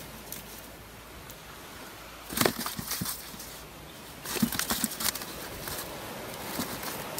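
Freshly caught fish flapping and rustling in a cast net and cooler bag as they are handled: two short flurries of slaps and rustles, about two and a half and four and a half seconds in, over a steady background hiss.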